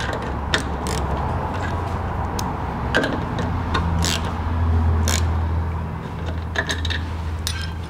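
Scattered small metallic clicks and ticks of a spanner tightening the nut of a suspension air-bag inflation valve on a steel bumper, over a steady low hum.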